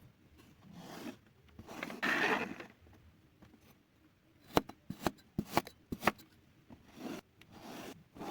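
Kinetic sand being cut and scraped: two grainy scraping passes, the louder about two seconds in, then a quick run of about six sharp clicks, and two softer scrapes near the end.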